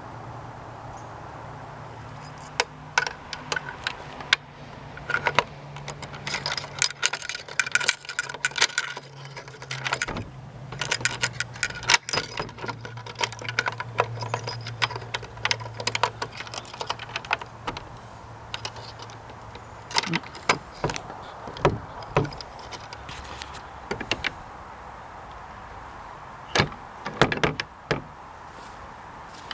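Keys jangling, with irregular sharp metallic clicks and rattles from a skeleton-key mortise lock and door being handled. The clicks are densest through the first half and more scattered later.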